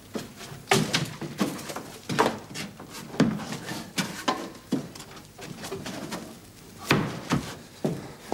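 Wooden knocks and thumps from a floor trapdoor and boards as a man climbs out through the hatch, then scuffing footsteps on a straw-covered wooden floor. About nine separate knocks, the loudest about a second in and near the end.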